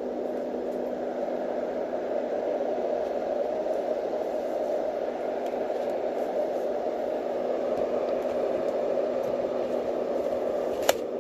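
Yogasleep Dohm fan-based white noise machine running on its slow setting, a steady airy whoosh with a low-mid hum. A single sharp click sounds near the end.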